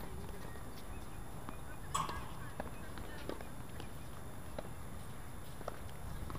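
Tennis balls struck and bouncing on outdoor hard courts: a scattering of sharp, irregularly spaced pops. A brief, louder cry stands out about two seconds in.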